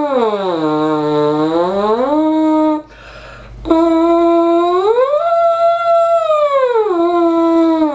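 French horn mouthpiece buzzing in octave slurs: a buzzed tone slides down an octave, holds, and slides back up. After a quick breath about three seconds in, a new pitch a half step higher slides up an octave, holds, and slides back down.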